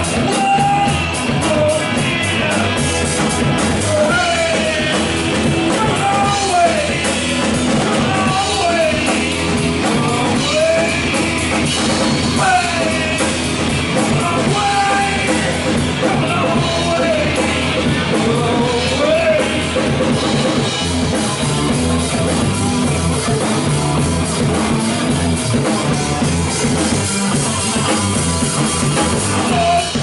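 Live rock band playing loudly: guitars, bass guitar and drum kit, with a bending lead melody riding over the top for roughly the first two-thirds.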